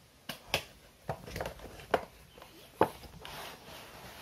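Doll packaging being opened by hand: about six sharp snaps and clicks of plastic and cardboard, then a steady rustle from about three seconds in.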